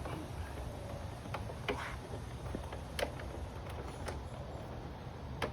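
Scattered light clicks and taps of hand tools and metal parts being handled, about five spread out, over a steady low hum, while a bolt is being worked to get it to start threading.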